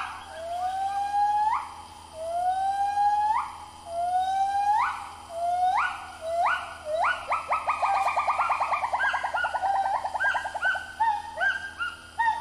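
Gibbons singing. A run of long whoops slides up in pitch, then about seven seconds in they break into a fast trill of short notes. Quicker, overlapping whoops from more than one gibbon follow.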